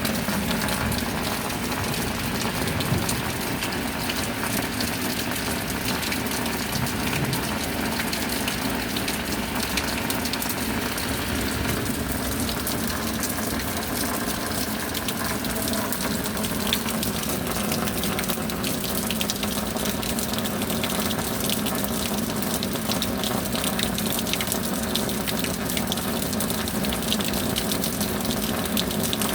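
Steady heavy rain falling, an even rushing hiss with scattered fine drop patter, and a faint steady hum underneath.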